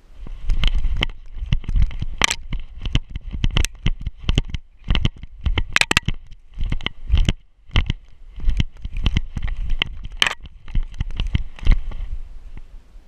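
A dog running through snow, heard from a camera harnessed to its back: a rapid, irregular string of thuds and knocks from its strides and the jolting mount.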